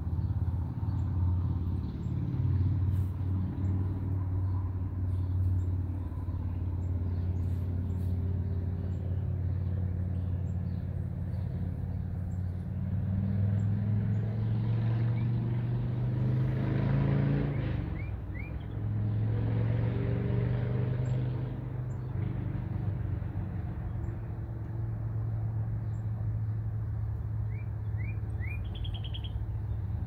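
Steady low engine hum of motor traffic. It swells as a vehicle passes about halfway through, with its pitch dropping as it goes by. A few short bird chirps come near the end.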